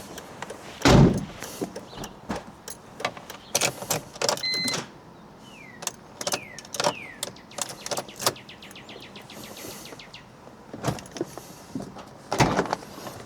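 BMW E46 failing to restart on a weak battery: a short electronic beep, then a rapid even run of clicks, about nine a second for a couple of seconds, typical of a starter solenoid or relays chattering on low voltage. A loud thump about a second in and another near the end.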